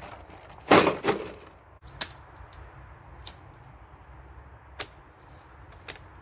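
A plastic crate of glass bottles set down on the ground, a loud clatter with the bottles clinking, just under a second in. Then a few scattered clicks and knocks as a wooden-slatted folding chair is handled and opened.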